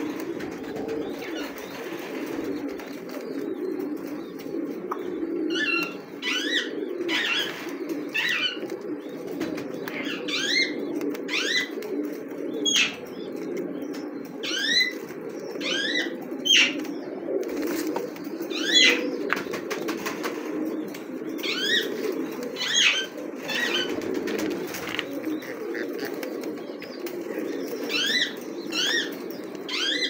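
Caged pigeons cooing, a continuous low murmur, with short rising bird chirps, often in pairs, repeating from about five seconds in.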